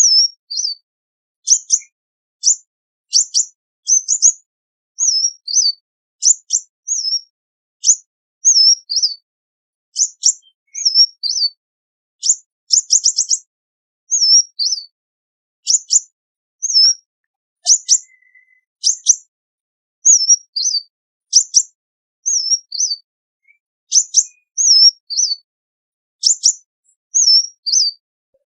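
Sunbird singing: a running series of short, high, thin chirps, some sliding down in pitch and others sharp ticks, roughly one to two calls a second, with a quick run of ticks about thirteen seconds in.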